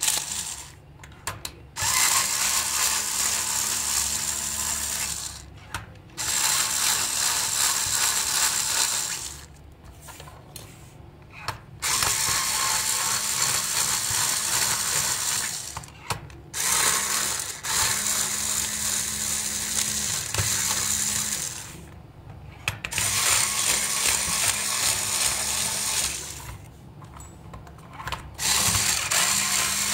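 Cordless electric screwdriver running in spells of a few seconds, about six times, with short pauses between, as it turns screws in a plastic toy car's base. Each run is a steady motor hum.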